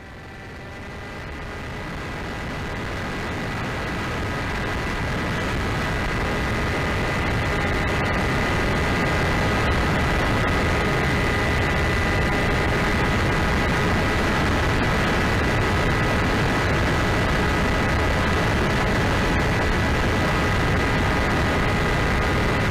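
Onboard audio from a small foam RC plane in flight: its electric motor and propeller whine steadily under a rush of wind over the airframe. It grows louder over the first several seconds, then holds steady.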